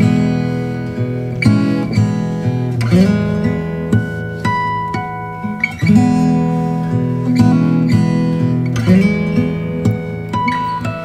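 Background music: acoustic guitar playing plucked and strummed chords at a steady pace.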